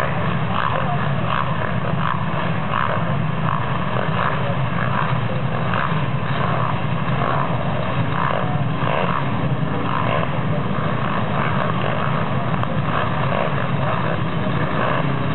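A full starting gate of motocross bikes running together, engines blipped in short repeated swells as the riders hold at the gate before the drop.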